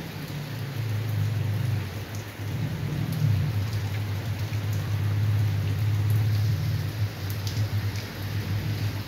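Heavy rain falling steadily on a yard and concrete path, an even hiss with a few sharp drip ticks. Under it runs a loud, wavering low rumble.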